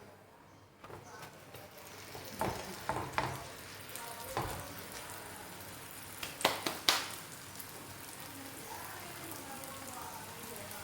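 Lachha paratha frying in ghee on a hot tawa: a steady sizzle that builds about a second in, with a few knocks between about two and four seconds in and two sharp clicks near the middle.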